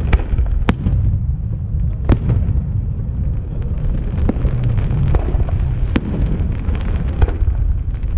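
Aerial firework shells bursting one after another, about seven sharp bangs spaced a second or so apart, over a steady low rumble.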